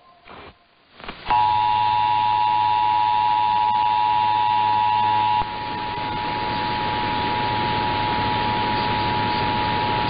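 Emergency Alert System attention signal, the steady two-tone alert tone, received over AM radio with static hiss beneath. It starts about a second in and becomes weaker and noisier about five seconds in as the receiver is retuned to another station carrying the same tone.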